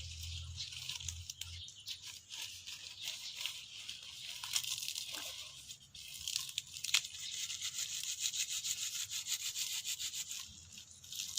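Dense, rapid scratching noise thick with small crackles, with a few sharper clicks, the strongest about seven seconds in.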